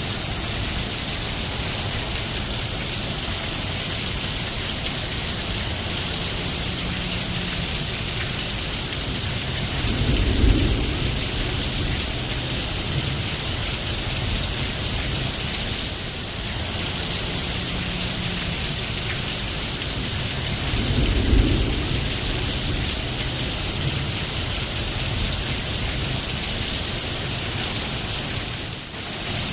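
Steady rain falling, with two low rumbles of thunder, about ten and twenty-one seconds in.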